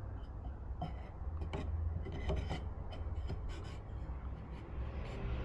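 Wooden dowel pin rubbing and knocking against a notched wooden bracket as it is slid into the slot, a scatter of small scrapes and clicks over a low steady hum.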